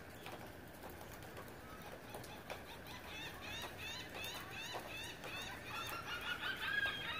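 A chorus of short animal calls, several a second at different pitches, each rising and then falling. The calls start about three seconds in and grow louder toward the end, over faint scattered clicks.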